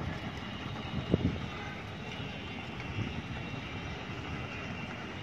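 Steady outdoor rumble of distant city traffic, with a couple of short low thumps about a second in.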